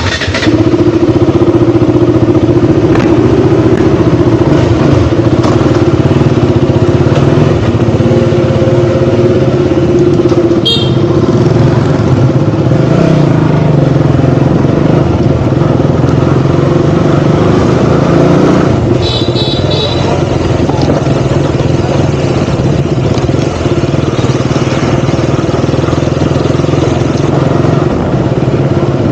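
KTM Duke 200's single-cylinder engine running continuously while the bike is ridden, its revs rising and falling. Short high-pitched beeps sound twice, about 11 seconds in and again around 19 seconds in.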